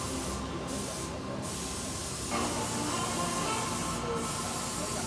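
A steady hiss, its upper part dropping out briefly twice in the first second and a half and once near the end.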